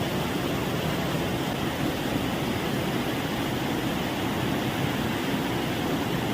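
Heavy rain falling, a steady even noise with no separate drops, thunder or other events standing out.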